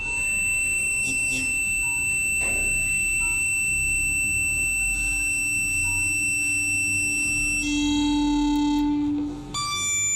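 Electric guitar notes held in endless sustain by a homemade electromagnetic sustainer, a hand-wound driver coil under test. A high steady tone rings on for most of the time; a lower note swells in around the middle, grows loud, then cuts off suddenly near the end, giving way to another high tone.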